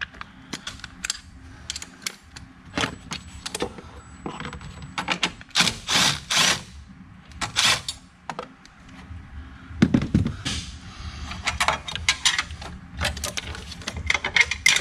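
Cordless impact driver hammering in a few short bursts as it undoes the battery hold-down bolt, among clicks and clunks of the battery terminal and metal hold-down bracket being handled.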